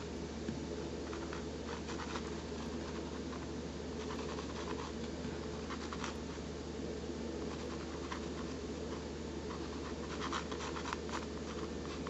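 Dry scratching of sketching strokes on the painting surface as the outline of a horse and rider is drawn in. The strokes come short and irregular, with a cluster near the end, over a steady low electrical hum.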